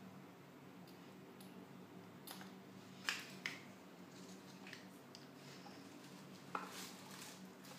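Scissors snipping lace and craft pieces being handled: four short, sharp clicks over a faint steady hum, the loudest about three seconds in.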